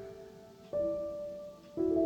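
Slow, soft relaxation music of sustained keyboard notes, with a new chord starting just under a second in and another near the end.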